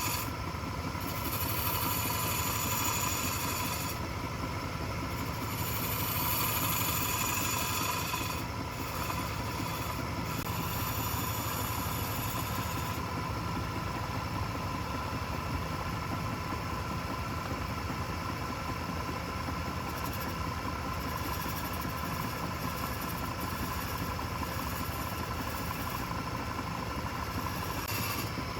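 Wood lathe running with a steady motor hum, with the hiss of a turning tool cutting the spinning wood coming and going over the first half.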